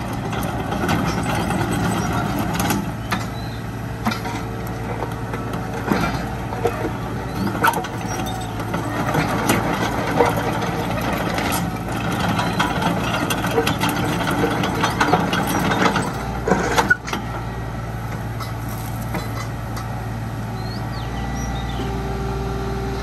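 Kubota U-30-5 mini excavator's diesel engine running as the boom and bucket are worked and the machine tracks forward, with frequent sharp clanks and knocks from the machine. The clanks stop about three-quarters of the way in and the engine settles to a steady run.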